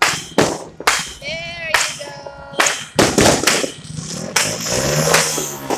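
Aerial fireworks and firecrackers going off in a rapid, irregular string of sharp bangs, several a second, with a few short pitched tones heard between the bangs.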